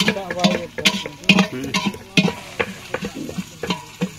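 Metal ladle stirring food frying in a large aluminium cooking pot, with irregular scrapes and knocks against the pot several times a second over a light sizzle.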